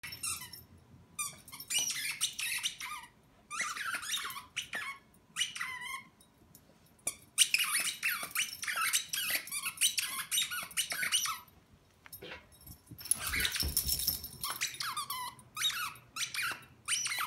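A dog chewing a squeaky toy football, setting off runs of quick, high squeaks with short pauses between them.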